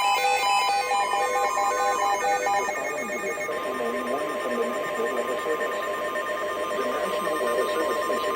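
Emergency alert tones: electronic beeps in several pitches pulse about twice a second for the first couple of seconds. Then a single steady tone, the weather radio warning alarm tone for a Special Marine Warning, sounds over radio static until it cuts off at the end.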